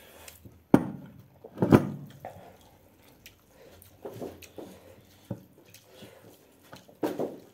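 A few scattered sharp knocks and clicks of plates and hands during a meal eaten by hand, the loudest about two seconds in.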